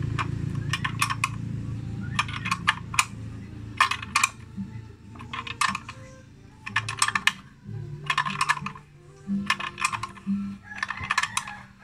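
Ratcheting wrench clicking in short bursts about once a second as it is worked back and forth on the nut of a blind bearing puller, drawing the output-shaft bearing out of a motorcycle transmission case.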